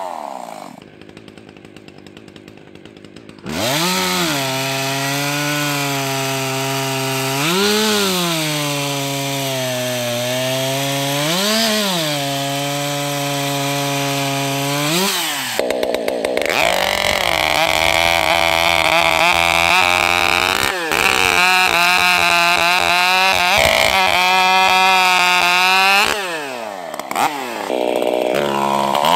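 65cc two-stroke racing chainsaws. One saw winds down, and after a short lull a saw runs under load through a wooden cant, its pitch rising briefly between cuts about every four seconds. A higher-revving saw then runs on, dips and revs up again near the end.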